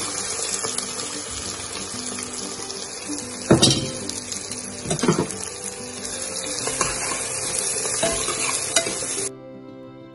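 Chopped onions sizzling in hot oil in an aluminium pressure cooker, stirred with a steel ladle that knocks against the pot a few times, loudest about a third of the way in. The sizzling cuts off suddenly near the end.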